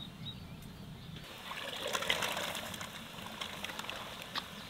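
Water splashing and trickling in an aluminium cooking pot as morel mushrooms are put into it. It swells about a second and a half in and fades after about a second.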